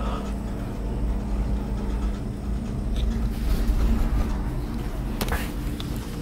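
Steady low rumble with a faint mechanical hum inside a cable car gondola cabin as it runs along the cable, with a single sharp knock about five seconds in.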